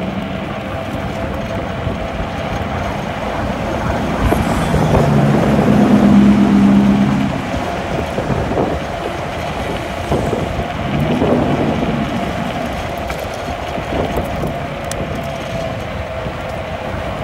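A 2500-watt electric scooter riding over pavement: continuous road rumble and wind noise, with a steady whine throughout. A passing motor vehicle's engine swells loudest about six seconds in, and again more briefly around eleven seconds.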